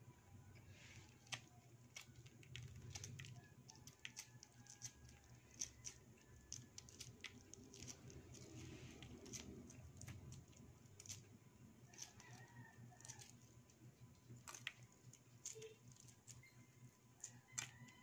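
Soft, scattered clicks and crackles of hard-boiled eggs being peeled and chewed, with faint bird calls in the background, a few around two-thirds of the way in and near the end.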